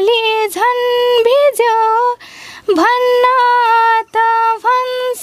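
A young woman singing a Nepali song unaccompanied, in long held notes that bend at their ends, with a quick breath taken about two seconds in.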